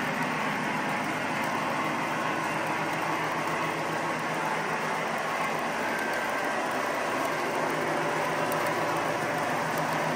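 Metal wheels of O-gauge model freight cars rolling steadily over the track, a continuous even rumble as a long string of covered hoppers and boxcars passes.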